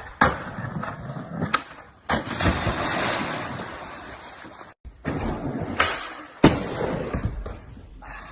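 A few sharp clacks, then a person plunging into a swimming pool with a loud splash and a few seconds of churning water that slowly dies down. After a cut, two sharp knocks about half a second apart, the second the loudest.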